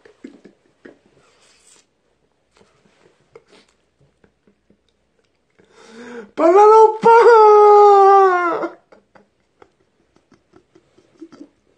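A man's long, wordless wailing cry, about two seconds long, starting about six seconds in with a brief break in the middle. Otherwise it is quiet apart from a few faint clicks.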